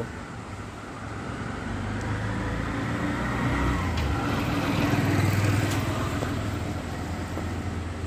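Street traffic: a motor vehicle engine humming, growing louder to a peak about five seconds in and then fading as it passes.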